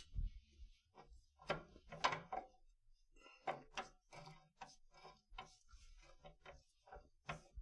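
Light, irregular clicks and knocks of hand tools and car parts being handled while the anti-roll bar bolts are taken out.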